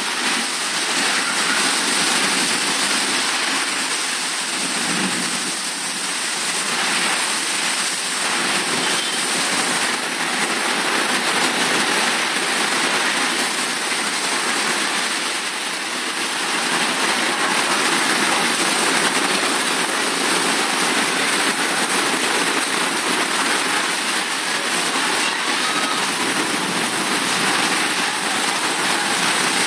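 Heavy storm rain falling hard on a translucent plastic canopy roof: a dense, steady downpour noise that eases slightly a few times and then builds again.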